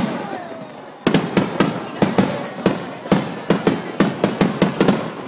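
Aerial firework shells bursting: one bang at the start, then from about a second in a rapid string of bangs, several a second, in a finale-like salvo.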